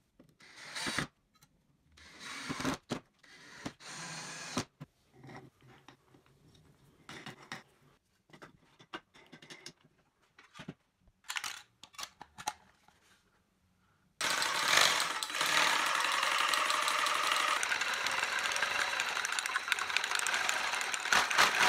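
Scattered knocks, clicks and scrapes as the wooden blocks and wing-nut clamp are fitted around a spray paint can, then about fourteen seconds in a homemade spray can shaker starts up and runs steadily, rattling the clamped can hard and fast.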